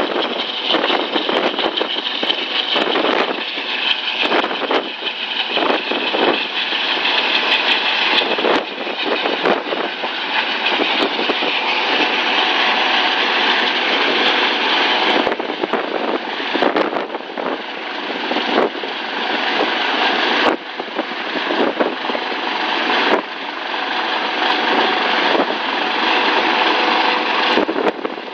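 Eurocopter AS365 Dauphin coast guard helicopter flying close by: its turbine engines and rotor run steadily, with irregular short crackles across the sound.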